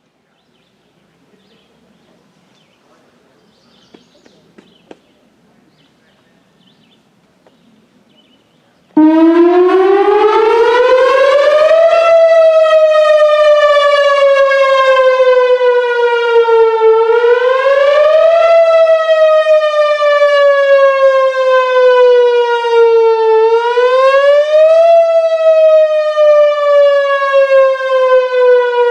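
Faint background with a few small clicks, then about nine seconds in a Whelen Vortex R4 outdoor warning siren starts up loud, sounding its wail test signal. The tone climbs, then slowly falls and climbs again about every six and a half seconds.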